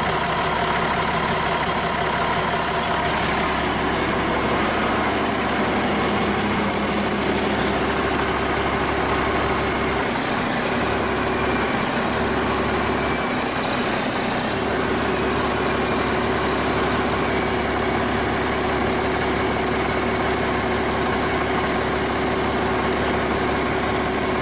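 Cummins 8.3 L inline-six diesel running steadily at idle in the forklift, turning the hydraulic pump through its newly built driveshaft. About ten seconds in, the tone changes and a hiss rises for about four seconds, then the even running resumes.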